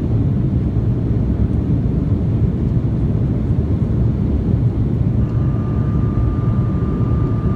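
Steady low roar of an airliner's engines and rushing air, heard inside the cabin during the climb after takeoff. A faint steady high tone comes in about five seconds in.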